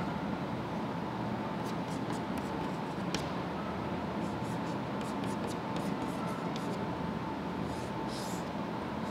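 Chalk tapping and scratching on a chalkboard in many short strokes as lines and letters are written, over steady room noise with a faint high steady tone.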